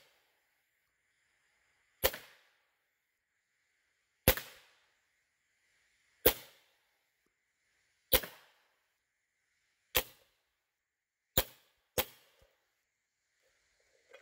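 SMG .22 full-auto air rifle, running on high-pressure air regulated at 1100 PSI, fired as seven single shots. Each shot is a sharp report, about two seconds apart, with the last two closer together.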